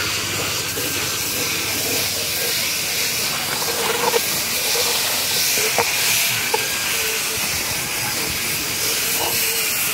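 Handheld rotary brush tool spinning against a foam-covered car door panel: a steady hiss with a faint motor whine and a few short clicks as the brush knocks the trim.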